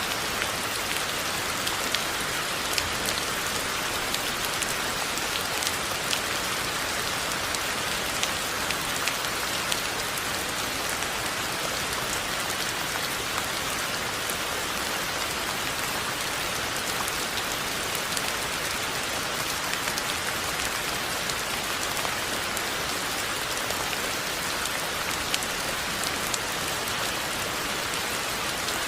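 Steady rain falling, a constant hiss with many individual drops ticking sharply on hard surfaces.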